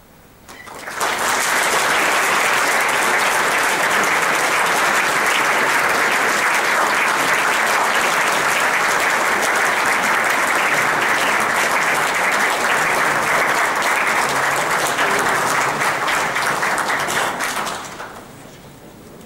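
Audience applauding after a wind band performance: the clapping starts abruptly about a second in, holds steady and dies away near the end.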